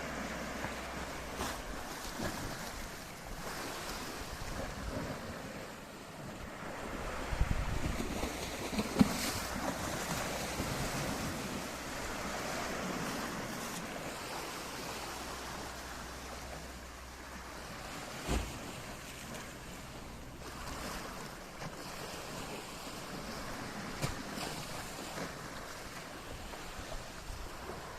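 Sea waves breaking and washing on the shore, with a few gusts of wind buffeting the microphone.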